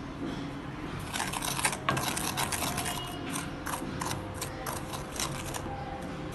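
A wooden spatula scrapes and stirs dry semolina around a stainless steel frying pan in quick, irregular strokes, as the semolina is dry-roasted. The scraping starts about a second in and stops shortly before the end.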